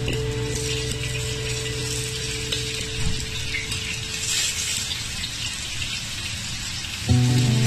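Sliced onions sizzling and crackling in hot oil in a frying pan, a steady high hiss. Background music fades out early on and comes back in about seven seconds in.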